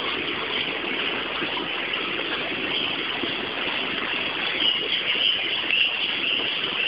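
Steady background noise with no distinct events: an even hiss-like rush with no rhythm or pitch.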